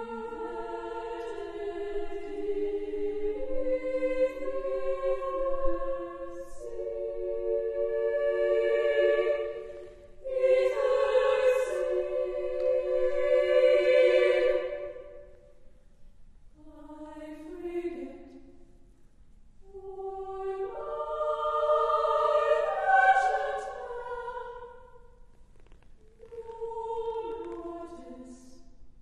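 Women's choir of sopranos and altos singing unaccompanied, in held chords, in phrases of a few seconds with short breaks between them, the later phrases softer.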